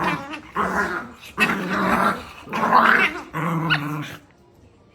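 A dog growling in several drawn-out bouts, stopping about four seconds in.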